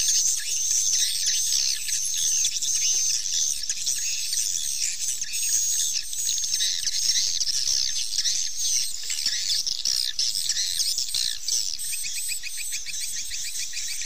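Swiftlets twittering and chirping in a dense chorus of high, quick calls with many short falling sweeps: the swiftlet lure call used to draw the birds to a swiftlet house. From about eleven seconds in, a rapid, even pulsing trill joins the chorus.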